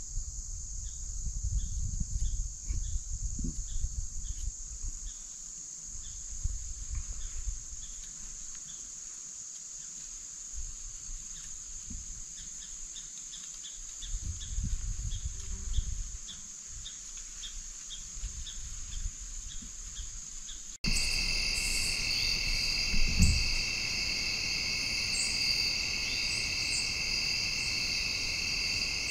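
Steady chorus of insects: a continuous high drone with faint rapid ticking beneath it, over intermittent low rumbles. About two-thirds of the way through it cuts abruptly to a louder chorus at two lower, steady pitches, with one brief low thump shortly after.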